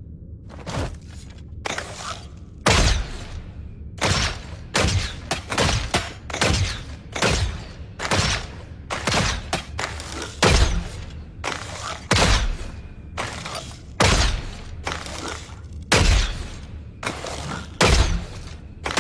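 Bow and arrow sound effects: a long run of sharp shots and thuds, about two a second, some with a heavier low thump.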